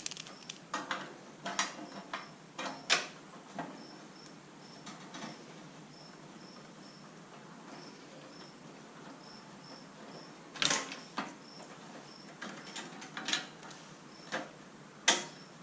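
Scattered metal clicks and clinks of hand tools and small fasteners while a snowblower's covers and bolts are taken off. Under them a faint high chirp repeats in short groups.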